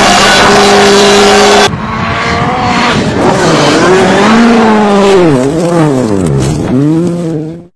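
A loud, steady, high engine note for about the first second and a half, then a cut to a Volkswagen Polo WRC rally car's engine on a gravel stage, its revs repeatedly dropping and rising as the driver lifts and goes back on the throttle. The sound cuts off abruptly near the end.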